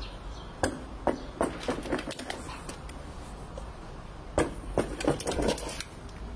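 A husky holding a rubber squeaky ball in its mouth on a tiled floor, making a string of short squeaks and clicks from the toy and its claws. There are several in the first two seconds, then another cluster about four to five and a half seconds in.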